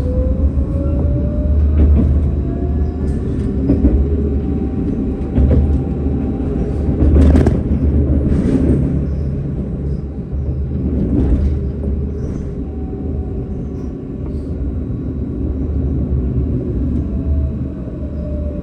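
Electric tram running on rails: a steady low rumble with the traction motors' whine climbing in pitch in the first few seconds and falling near the end as it speeds up and slows. A few sharp knocks from the wheels over rail joints or points come about halfway through.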